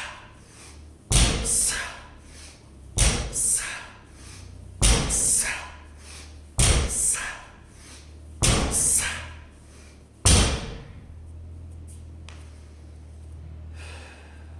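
Loaded 225-lb barbell set down on the floor between deadlift reps: six sharp thuds about two seconds apart, each followed by a short hiss. The thuds stop about ten seconds in, leaving a low steady hum.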